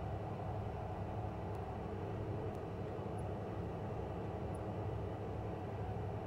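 Twin Williams FJ44 turbofan engines of a Cessna Citation M2 idling with the jet stopped, a steady drone with a faint steady tone heard from inside the cockpit.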